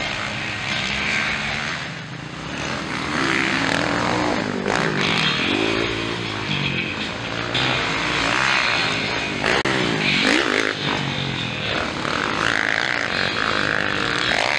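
Motocross bike engines revving hard and easing off over and over, the pitch rising and falling as the riders work the throttle through the track's jumps and corners.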